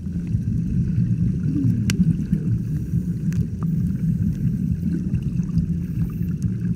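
Muffled low rumble and sloshing of sea water, with a single sharp click about two seconds in.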